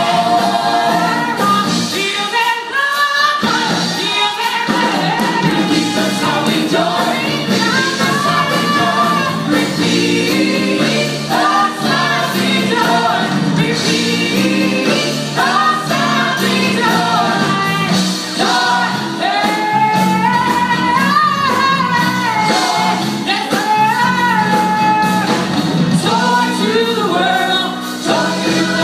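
Gospel vocal group singing live, a female lead over the group, backed by an amplified band with piano and electric guitar.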